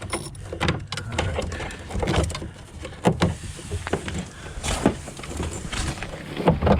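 Irregular clicks and knocks of hand-tool work on a scrap SUV's underside, over a low steady rumble.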